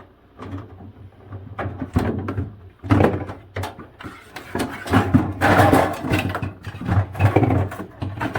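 Plastic clicks, knocks and scraping as the interior back panel of a refrigerator is worked loose and pulled off, with the loudest scraping in the second half. A steady low hum runs underneath.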